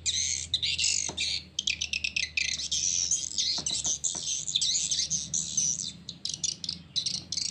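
Swiftlet lure call recording played back through two horn tweeters: a dense, unbroken stream of fast, high, overlapping chirps and twitters, with a low steady hum underneath. It is the kind of call sound used in swiftlet houses to draw the birds in.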